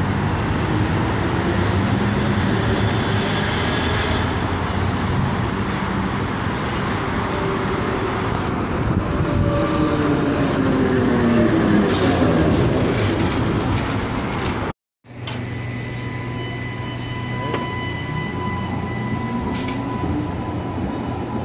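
A vintage 900-series New Orleans streetcar runs in on its rails and passes close by, its running sound gliding up and down in pitch as it goes past. After a sudden cut about two-thirds through, a red streetcar rolls past with a steady high-pitched whine over the rail noise.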